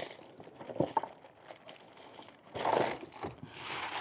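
Packaging being handled: crinkling and rustling with a couple of sharp clicks about a second in, and a louder rustle shortly before three seconds in.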